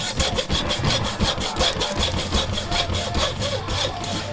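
Hacksaw cutting through the soft copper windings of a small transformer, in steady back-and-forth strokes about three a second.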